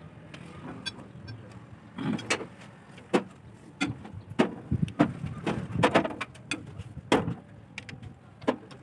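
Hand tools clinking and knocking, metal on metal, against the bolts and cast housing of a Fiat 480 tractor's service plate. An irregular run of sharp clinks starts about two seconds in.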